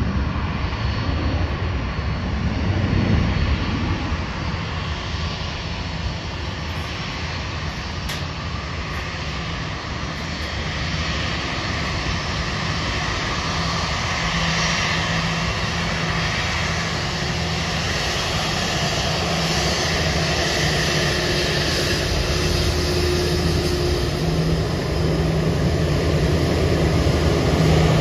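Airbus A330-900's Rolls-Royce Trent 7000 turbofans running at taxi power as the airliner taxis close by: a steady jet whine and rumble that grows louder toward the end as it nears.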